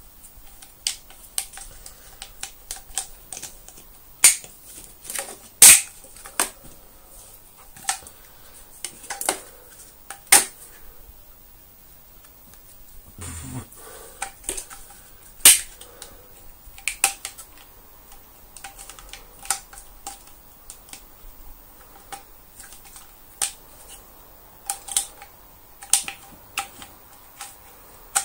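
Irregular clicks, taps and knocks of hard plastic Dyson DC24 vacuum cleaner parts being handled and fitted together by hand. The sharpest clicks come about six and fifteen seconds in, with a dull low bump shortly before the second.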